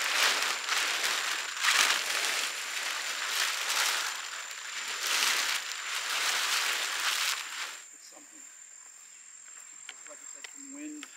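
Large plastic tarp rustling and crackling in uneven waves as it is hauled over a camper. About eight seconds in it cuts off suddenly, leaving only a faint, quiet outdoor background.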